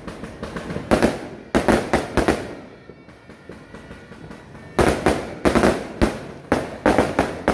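Fireworks exploding overhead: a quick group of sharp bangs about a second in, a short lull, then a rapid run of bangs from about five seconds in.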